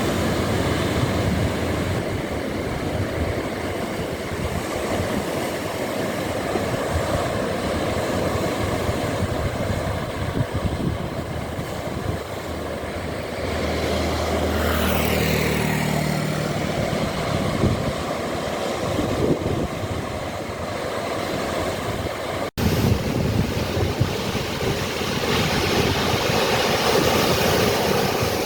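Ocean surf, a steady rushing wash of waves. A little over halfway through, an engine hum with shifting pitch rises and fades as it passes. About three-quarters of the way in there is a very brief dropout.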